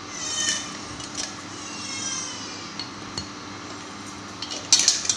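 A spoon clinking and tapping against a steel mixer jar and a glass jar while ground seed powder is spooned in. There is a ringing clink about half a second in, a few light taps, and a louder clatter of several knocks near the end.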